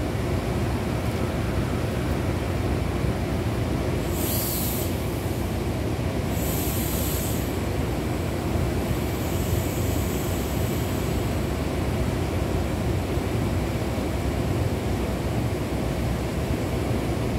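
Standing Amtrak passenger train with its diesel locomotives idling: a steady low rumble, with two short high hisses about four and six seconds in and a fainter hiss near ten seconds.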